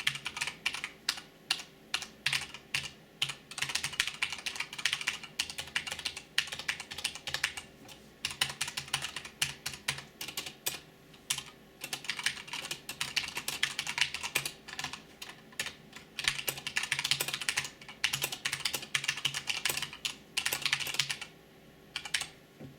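Typing on an Akko Ocean Star SP 84-key mechanical keyboard: random keys struck in quick, irregular runs of clacks with short pauses, stopping near the end.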